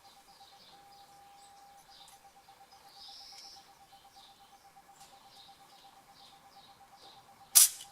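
Faint birds chirping over a faint steady tone, then near the end one sharp, loud hammer blow with a brief ring, struck on a makeshift driver to press the new pinion seal into a GM 10-bolt 7.5" rear axle housing.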